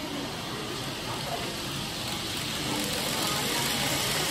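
N-gauge model train running on the layout track: a steady rattling hiss of wheels on rail with motor hum, growing slightly louder toward the end.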